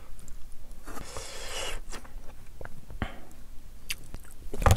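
Close-miked eating sounds: a short hiss about a second in, then a few small mouth clicks and a louder smack near the end as a piece of shrimp nigiri is bitten into.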